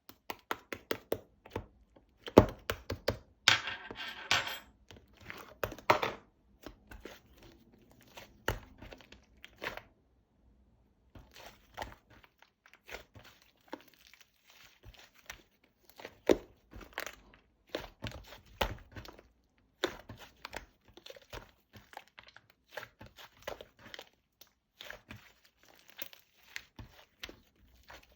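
Close-up handling sounds: irregular sharp clicks, crinkles and crunches. There is a denser run of crackling a few seconds in and a brief pause about a third of the way through.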